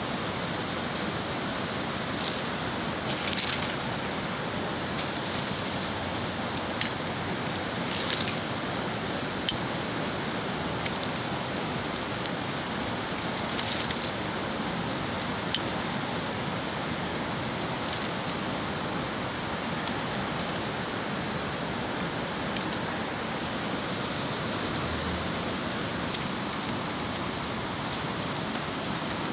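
Driftwood campfire crackling, with scattered sharp pops and short crackly bursts over a steady rushing hiss.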